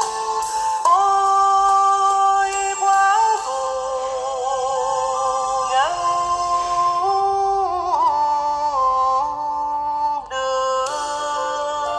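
Cải lương music: a melody of long held notes with slides between pitches and vibrato over a light accompaniment.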